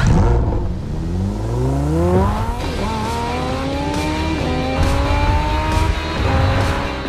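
Lamborghini Huracán EVO's V10 engine accelerating hard through the gears after a sudden loud burst at the start. The pitch climbs steeply, drops at each upshift about every two seconds, and climbs again.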